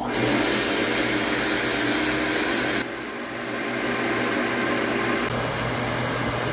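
Pedrollo 1.5 HP, 220 V centrifugal water pump switched on after its capacitor was replaced: the motor starts at once and runs with a steady hum and a hiss. The hiss eases a little about three seconds in.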